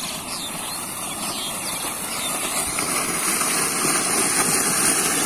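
Water gushing up under strong pressure from an irrigation pipeline outlet and splashing into a field channel: a steady rushing noise that slowly grows louder.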